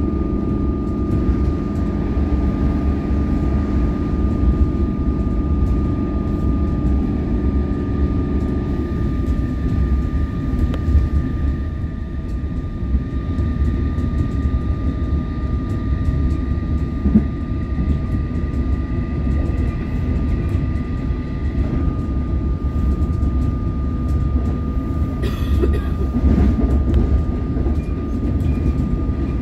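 Interior running noise of an Alstom Comeng electric suburban train at speed: a steady low rumble of wheels on track, with a steady high-pitched hum over it. A fainter, higher whine comes in for a while in the middle.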